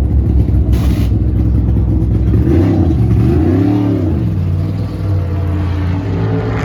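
NASCAR Cup cars' V8 engines running at speed. About two and a half seconds in, one car's engine note climbs and then drops away as it goes by, ending a little after four seconds.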